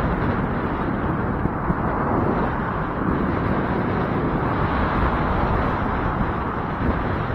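Steady rushing wind noise buffeting the microphone, with no clear pitch or separate events.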